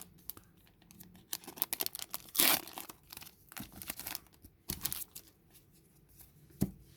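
Crinkling and tearing of a foil Magic: The Gathering booster pack wrapper, heard as a string of short crackles, loudest about two and a half seconds in.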